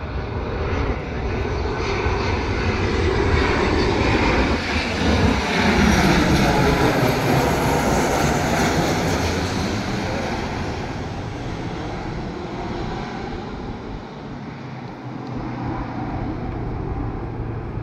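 Twin-engine jet airliner passing low overhead. Its engine noise builds to its loudest about six to eight seconds in, sweeps in pitch as it passes, then slowly fades as it flies away.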